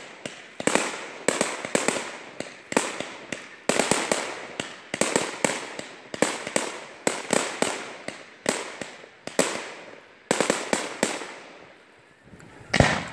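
Fireworks going off: a rapid string of sharp bangs, two or three a second, each trailing away. The bangs die away about eleven seconds in, then one loudest bang comes near the end.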